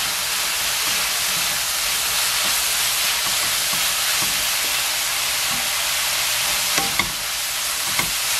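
Tofu and beech mushrooms sizzling steadily in a nonstick wok while a wooden spatula stirs them, with a couple of sharp clicks near the end.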